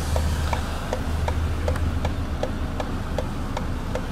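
Regular light ticking, about two and a half ticks a second, over a steady low hum inside a car.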